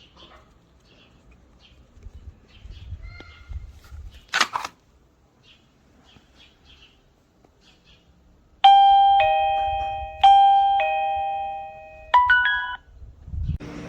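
Electronic doorbell chime playing a two-note ding-dong (a high note falling to a lower one, each ringing out) twice in a row, then starting a quicker, higher run that cuts off. A single sharp click comes a few seconds before the chime.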